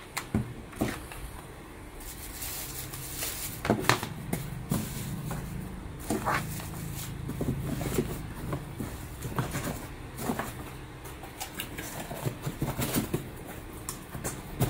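Packing a kettle into its cardboard box: scattered knocks and clicks as the plastic power base and cord are handled and set inside, rustling of packaging, and cardboard flaps being folded shut near the end. A faint steady low hum runs underneath.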